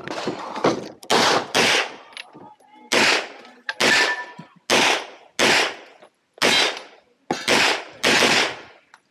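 Semi-automatic pistol fired in rapid pairs, about a dozen shots. The two shots of each pair come about half a second apart, with a second or so between pairs, as the shooter engages IPSC targets two shots each.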